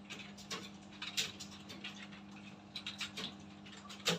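Computer keyboards being typed on by several people at once: irregular key clicks, sometimes in quick runs, with one sharper, louder keystroke near the end, over a steady low hum.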